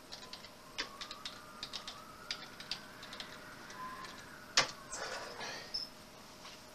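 Typing on a computer keyboard: a run of short, irregular key clicks as a password is typed in, with one louder click about four and a half seconds in, over a faint steady hum.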